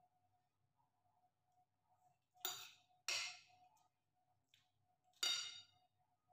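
A metal spoon clinking against a ceramic dinner plate while eating: two sharp clinks in quick succession near the middle and one more near the end, each ringing briefly. A faint steady hum runs underneath.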